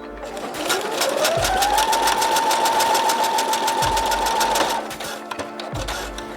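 Brother SQ9185 computerized sewing machine stitching a monogram letter with its monogramming foot: the motor whine rises in pitch as it speeds up over the first two seconds, holds steady with rapid even needle strokes, then stops a little before five seconds in.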